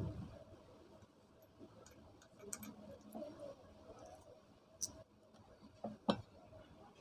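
A few scattered light clicks and taps of metal tools and fan parts being handled, with one sharper knock about six seconds in.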